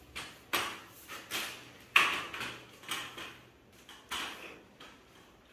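Digitek camera tripod being handled and adjusted: a string of short clicks, knocks and scrapes from its legs and fittings, the loudest about two seconds in.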